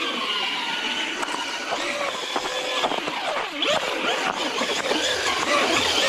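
Electric whine of a Traxxas Rustler 4x4 VXL RC truck's brushless motor and drivetrain, its pitch rising and falling with the throttle. The pitch drops sharply and climbs again about three and a half seconds in.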